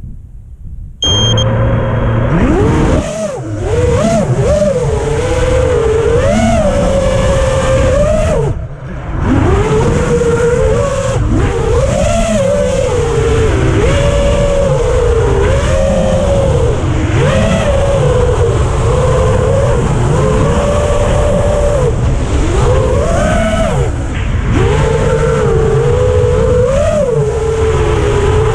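FPV racing quadcopter's motors and propellers whining, the pitch rising and falling with every throttle change. A short high beep sounds about a second in, just before the motors spin up, and the whine drops off briefly about a third of the way through.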